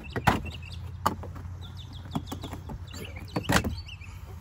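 Plastic side trim panel on a Ford Explorer dashboard being pulled off by hand, its retaining clips snapping and the plastic knocking: several sharp clicks, the loudest about three and a half seconds in. Birds chirp faintly in the background.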